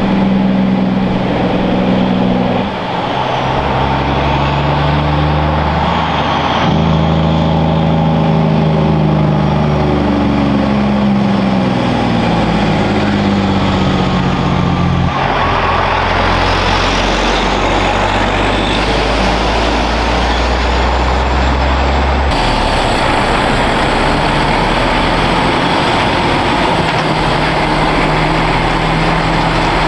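Heavy diesel trucks running past one after another, among them a cab-over Kenworth tipper truck and trailer and a MAN truck and trailer, their engine notes stepping up and down as they change gear. The sound shifts abruptly a few times from one truck to the next.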